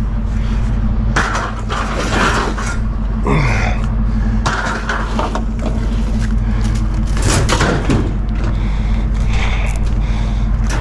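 Scrap metal clanking and scraping in irregular knocks, over a steady low engine-like hum.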